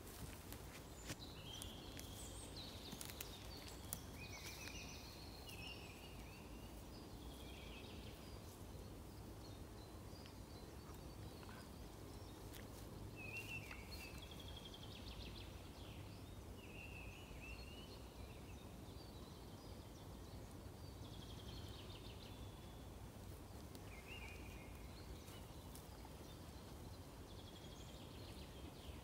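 Small songbirds calling in short high phrases and trills every few seconds, over a steady low background rumble. A few sharp clicks come in the first few seconds.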